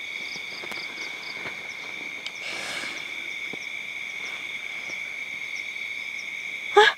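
Night insects, crickets, keep up a steady shrill chorus: two constant high tones with a quick repeating chirp above them. Just before the end, a brief loud rising cry cuts through.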